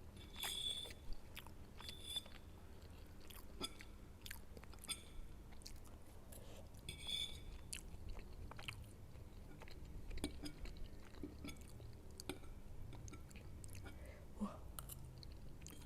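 Close-miked chewing of soft food (instant noodles, egg and siomay), with scattered wet mouth clicks and a few louder smacks near the start and in the middle.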